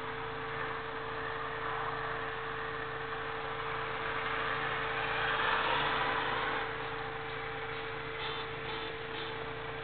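Road traffic heard from inside a car waiting at an intersection, a steady noise under a constant hum, swelling about halfway through as vehicles pass and then easing.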